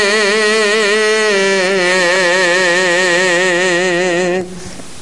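A man's voice singing a naat, drawing out the last syllable of a line as one long held note with a wavering vibrato, which stops about four and a half seconds in.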